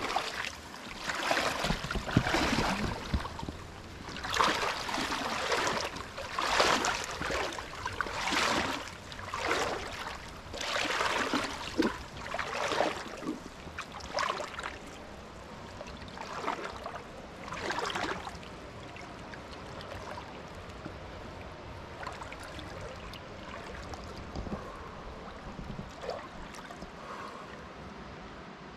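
Water swishing and sloshing with each stride as a person wades waist-deep through a river pool, towing a small loaded raft. The swishes come about once a second and die away about eighteen seconds in, leaving the steady rush of the stream.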